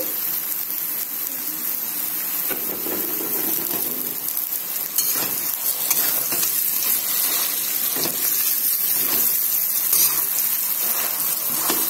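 Mashed potato with fried onion, garlic and ginger sizzling in oil in a pan as it is stirred: a steady hiss with a few sharp knocks.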